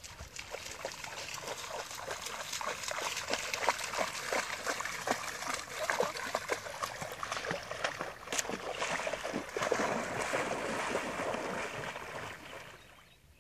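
Golden retriever splashing through shallow lake water: many quick separate splashes as it wades, giving way about nine seconds in to a steadier swishing of water as it swims, which fades near the end.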